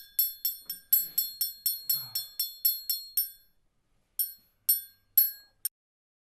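High, bell-like metallic strikes, each ringing on the same few pitches: a fast run of about thirteen, roughly four a second. After a pause of about a second come four slower strikes, the last cut short.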